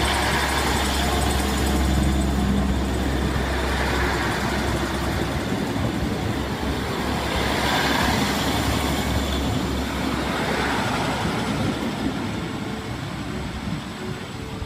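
Diesel multiple unit train running close past: a steady low diesel engine drone with wheel and rail noise that swells every few seconds as the coaches go by, fading near the end as the train draws away.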